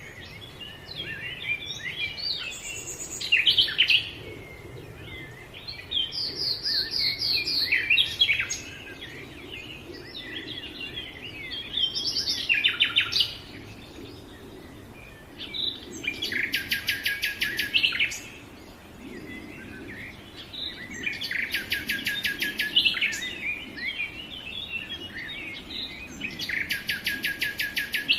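Several songbirds singing and calling together: varied short chirps and whistles, and three times a fast rattling trill lasting about two seconds.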